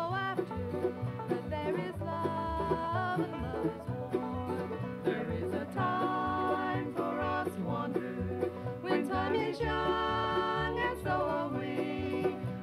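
Bluegrass-style acoustic string-band music playing from a family band's old cassette album, a stretch with no clear singing.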